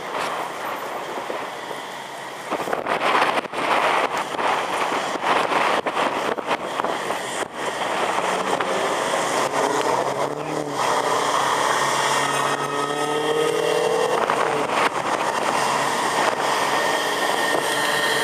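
A car engine running hard under loud, rough noise, its note rising in pitch through the second half as it accelerates.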